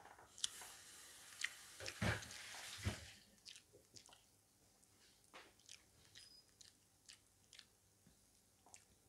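Close-up eating sounds of chicken and rice eaten by hand: chewing with wet mouth smacks and clicks. The first three seconds are busier and louder, with a couple of soft thumps; after that come scattered light smacks.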